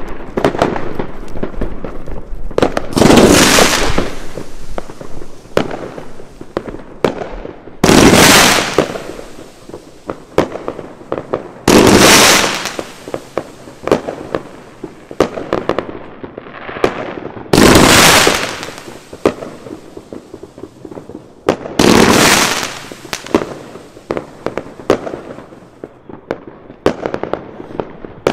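Sunbeam 5 fan-shaped fireworks cake firing five loud volleys of comets, one about every four to five seconds. Each volley is a burst of hiss that starts suddenly and fades over about a second. Scattered sharp cracks and bangs sound throughout.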